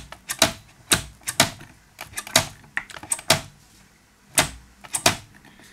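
Sharp mechanical clicks and clacks, about two a second at uneven spacing, from the Grundig Satellit 3400's drum band selector mechanism being worked by hand while it is checked for lubrication.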